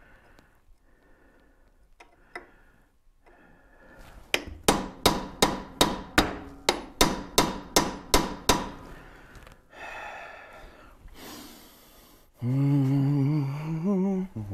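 A rapid run of about a dozen ringing hammer blows on metal at the rear wheel hub of a 1914 Studebaker, nearly three a second, while a stuck hub part is being driven loose. Near the end a man gives a long wordless grunt.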